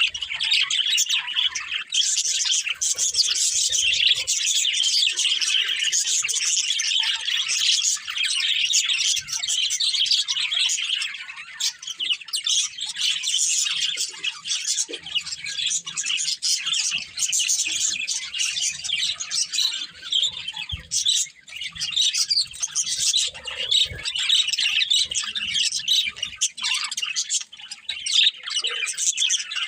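Budgerigars chirping and chattering without a break, dense overlapping warbles, chirps and clicks, with the odd squawk.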